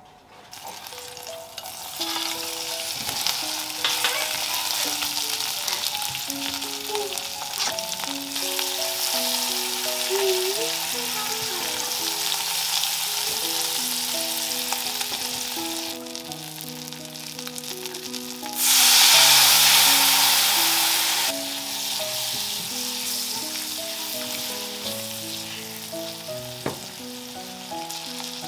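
Food sizzling as it fries in a pan, a steady hiss that grows louder for about two and a half seconds past the middle. Soft background music with a slow melody plays underneath.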